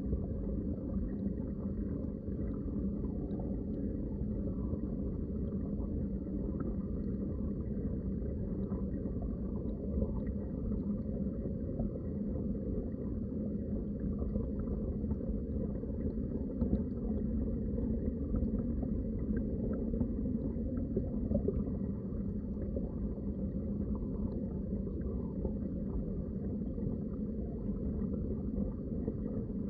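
Underwater water ambience: a steady, muffled low rumble of moving water with faint scattered crackles.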